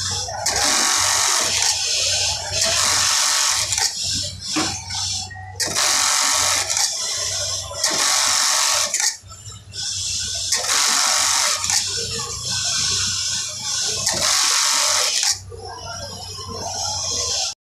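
Industrial bartack sewing machine running repeated tacking cycles: about a second of fast needle rattle each, coming every one to two seconds as piece after piece is sewn, over a steady low hum.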